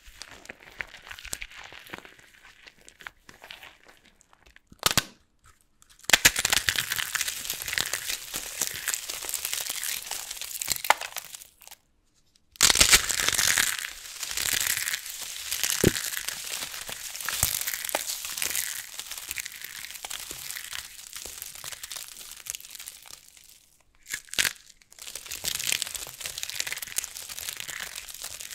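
Dry soap with starch crunching and crackling in a dense run of fine crackles. It comes in bouts, quieter at first, broken by short silences about six, twelve and twenty-four seconds in.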